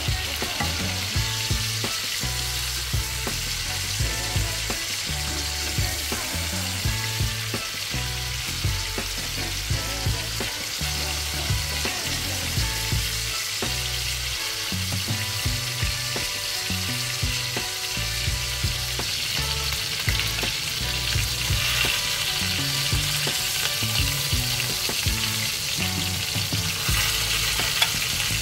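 Seasoned skin-on chicken thighs frying in oil in a pan: a steady sizzle with small pops and spatters.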